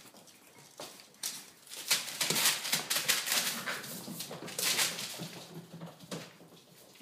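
Six-week-old vizsla puppies playing on a wooden floor: a run of irregular scuffling and scrabbling, loudest from about two to five seconds in, then quieter.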